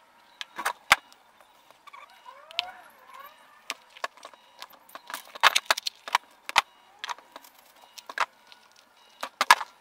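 A shoe sole, its contact cement softened with thinner, being peeled off the upper with pincers: irregular sharp clicks and snaps as it comes away bit by bit.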